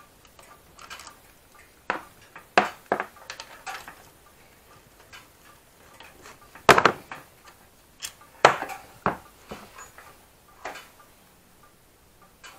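Irregular metallic clinks and clanks of hand tools and steel parts while the factory footpegs are unbolted from a moped, with the loudest clanks past the middle.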